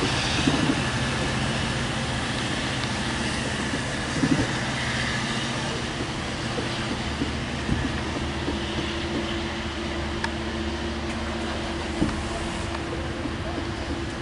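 Long Island Rail Road diesel push-pull train with C3 bilevel coaches standing at the platform, running with a steady low hum. The lowest part of the hum grows stronger about halfway through, and there are a few short knocks.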